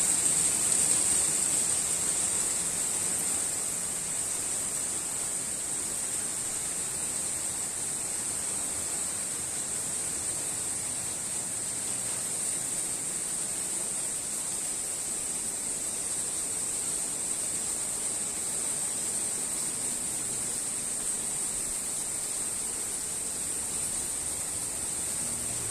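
Steady hiss of a rain shower, easing slightly over the first few seconds. A continuous high-pitched hum sits over it throughout.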